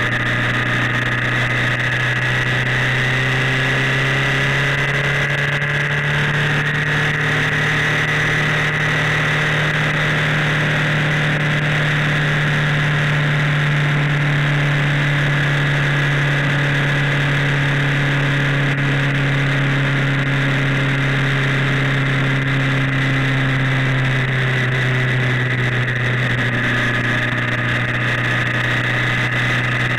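Suzuki Hayabusa's inline-four engine running steadily at cruising speed in the rain, its pitch rising slightly about six seconds in and easing back near the end, under a steady hiss of wind and road spray.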